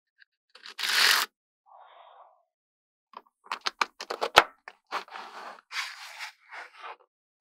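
Small magnetic balls clicking and scraping: sheets of magnet balls slide against a plastic card, then snap together in a quick run of sharp clicks near the middle, with more scraping before and after.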